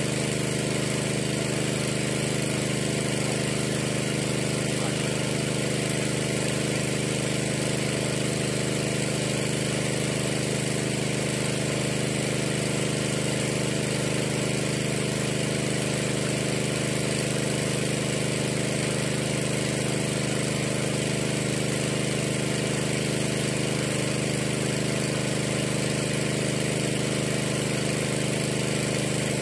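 Small engine of a water pump running steadily at one constant speed while a bored well is flushed of murky water.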